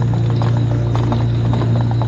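Electric mobility scooter running along a dirt trail: a steady low hum from its drive, with quick rattles and clicks from the scooter jolting on the track.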